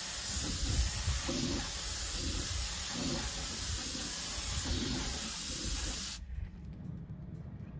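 Gravity-feed compressed-air spray gun spraying epoxy etching primer: a steady hiss of air and paint mist that cuts off suddenly about six seconds in, leaving only a faint low background.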